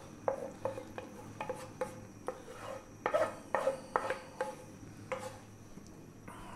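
Spatula scraping fried onions and tomato paste out of a frying pan into a stew pan: a run of light knocks and scrapes of utensil and pan against metal, about two a second, stopping about five seconds in.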